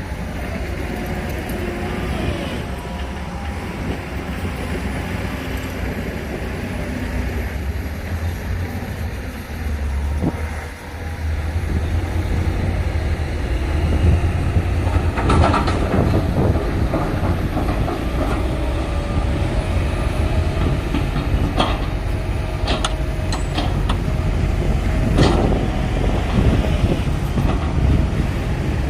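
Heavy crawler bulldozer (Shantui DH17C2) running under load with a deep diesel rumble, and its steel tracks clanking and squealing. Several sharp metallic clanks and squeals come in the second half.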